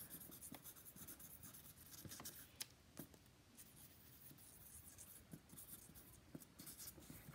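Felt-tip marker dotting and scribbling on paper: faint scratching with scattered light taps of the tip.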